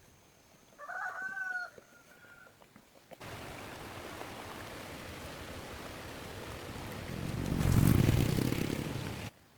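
A rooster gives a short crow about a second in. About three seconds in a steady rushing noise starts, swells louder near the end and cuts off suddenly.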